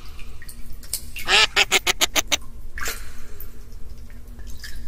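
Duck quacking: a quick run of about eight short quacks about a second in, then a single quack about half a second later and a fainter one near the end.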